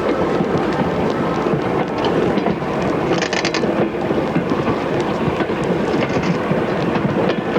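Moving train running steadily, a dense rumble and rattle of the carriages on the rails with quick small clicks, and a brief hiss about three seconds in and again near six seconds.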